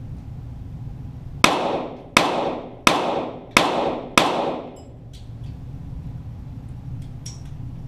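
Five .22 Walther GSP target-pistol shots fired in quick, even succession, about two-thirds of a second apart, each followed by an echoing tail.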